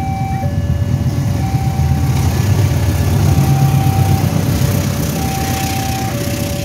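CC-class diesel-electric locomotive passing close, its engine noise loudest about halfway through, followed by wheel noise from the passenger cars. Over it the level crossing's warning alarm sounds in two alternating tones, switching about once a second.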